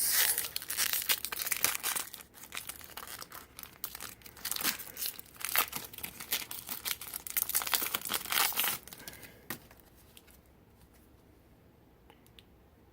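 Foil wrapper of a Pokémon trading-card booster pack crinkling and tearing as it is ripped open. The crinkling stops about nine seconds in, leaving only faint handling.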